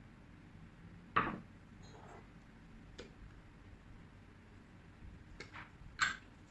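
A few sharp clinks of cutlery against a plate, separate taps with short gaps between, the loudest about a second in and near the end.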